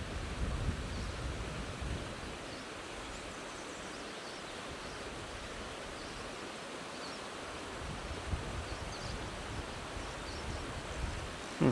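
Steady outdoor background noise, with low rumbles of wind on the microphone coming and going, and a short low thump at the very end.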